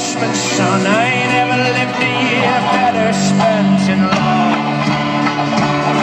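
Live folk-rock band music heard from the audience: fast strummed guitars over steady bass notes, loud and continuous.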